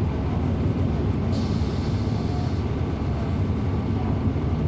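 NABI 40-SFW transit bus's Cummins ISL9 inline-six diesel running steadily under way, heard from inside the bus. A brief hiss about a second in lasts roughly a second.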